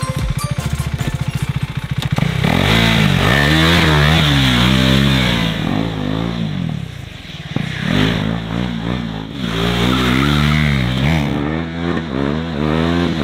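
KTM RC 390's single-cylinder engine idling with a fast, even beat, then revved up and down over and over as the motorcycle is ridden hard through cones. The revs drop off briefly about seven seconds in, then climb and fall again.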